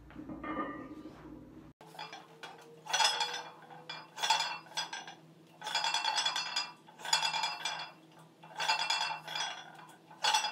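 Iron weight plates clinking and rattling on a loaded barbell with each rep of a back squat, about six times at roughly one-and-a-half-second intervals.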